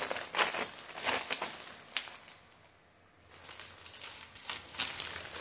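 Deflated foil (mylar) balloon crinkling as it is unfolded and handled, in irregular rustles with a brief pause about halfway through.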